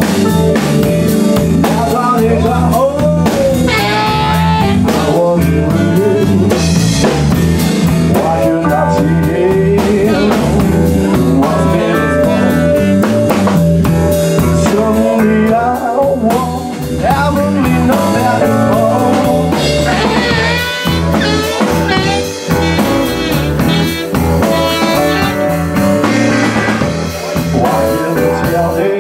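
Live band playing a blues-style jam: a drum kit, bass guitar and electric guitar, with a man singing over them.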